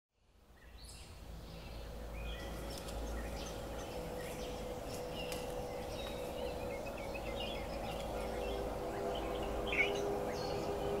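Forest ambience fading in from silence: scattered bird chirps over a low rumble and a steady hum, with a second hum tone joining about two-thirds of the way through.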